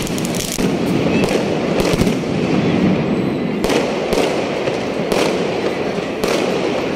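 Fireworks going off overhead: a string of sharp bangs, roughly one a second, over a continuous noisy crackle, from aerial shells bursting in the sky.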